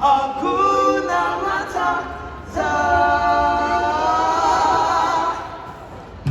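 Voices singing without accompaniment: a short moving phrase, then one long held note with vibrato from about two and a half seconds in that fades out near the end.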